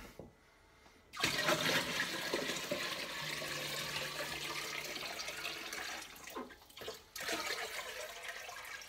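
Water poured from a bucket into a half-filled small glass aquarium (Ciano Nexus Pure 25), splashing as the stream hits the water. The pour starts about a second in, falters for a moment past the middle, then picks up again.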